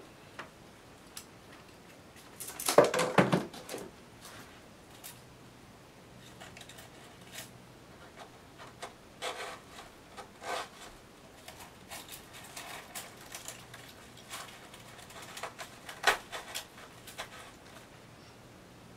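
Scattered small clicks, taps and dry rustles of dried agapanthus seedheads and their stems being handled and pushed into a flower arrangement, with a louder burst about three seconds in and a sharp click around sixteen seconds.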